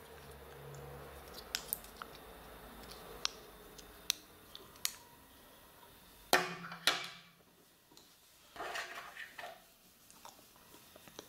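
Small plastic and metal Beyblade parts being handled and taken apart: scattered sharp clicks, then a few short scraping rasps around the middle and later.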